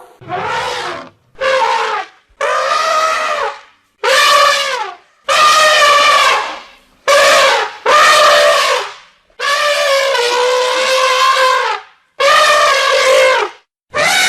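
A series of about ten loud animal calls, each lasting from half a second to over two seconds, with a clear held pitch that drops at the end of several of them.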